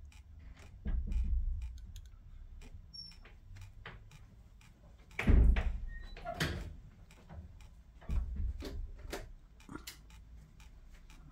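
Bench handling noise during fine work on a small circuit board: a few dull knocks and thumps, the loudest about five seconds in, over a run of light ticks about two a second.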